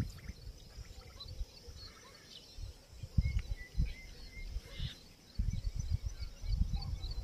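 Wind gusting over the microphone in irregular low rumbles, with small birds chirping faintly in the background.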